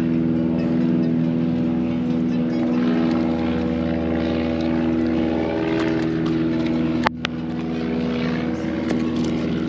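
A steady, unchanging engine drone holds one pitch throughout. A single sharp click comes about seven seconds in.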